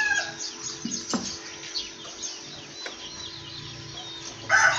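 Birds chirping, with a rooster's crow trailing off at the start and another loud crow beginning near the end.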